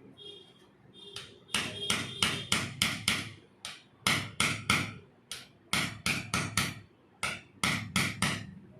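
Quick, sharp percussive strikes on a patient's body during chiropractic treatment, typical of hands slapping or tapping the back. They come in short runs of three to seven at about four strikes a second, with brief pauses between the runs.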